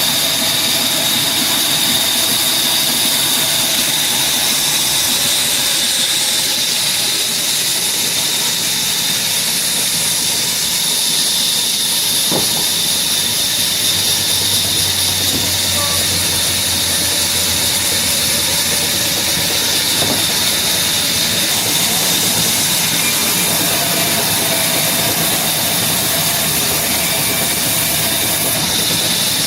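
Power saw running steadily through wood, a continuous loud hiss with a steady high whine.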